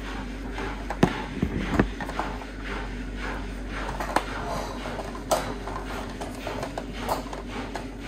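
Washing machine in its main wash, the drum turning with pop-it fidget toys inside, giving irregular knocks and thuds over a steady hum.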